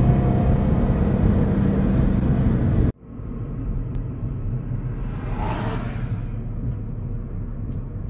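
Steady road and engine drone inside a moving car, which cuts off abruptly about three seconds in. After it comes a quieter, rougher rumble of traffic and wind, with a brief rushing swell about five and a half seconds in.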